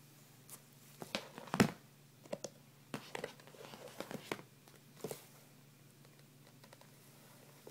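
Handling noise as a hand turns a spiked leather loafer close to the camera: scattered clicks, knocks and rustles, the loudest knock about a second and a half in, stopping after about five seconds.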